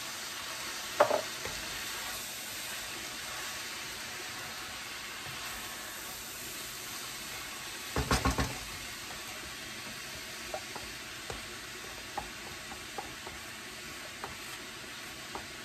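Shredded cabbage, chicken and vegetables sizzling steadily in a hot wok, stirred with a wooden spoon. There is a sharp knock about a second in, a quick run of knocks about eight seconds in, and light taps after that.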